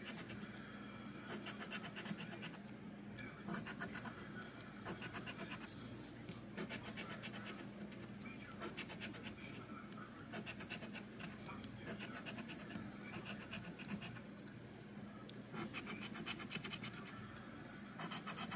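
A coin scraping the scratch-off coating from a paper lottery ticket, in runs of rapid back-and-forth strokes with short pauses between them.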